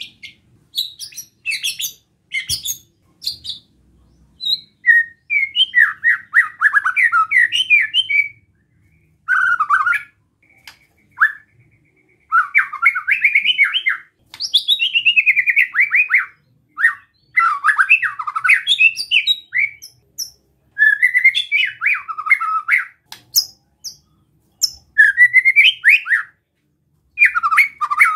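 White-rumped shama (murai batu) singing its scratchy 'besetan' song: quick runs of rapid notes in phrases of one to three seconds, with short pauses between them. This is the kind of song used to provoke other shamas into singing.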